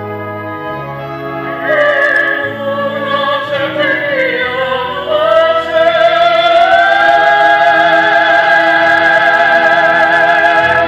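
Operatic-style stage-musical singing over musical accompaniment. The melody changes pitch through the first half, then rises into a long, loud held note with vibrato that lasts to the end.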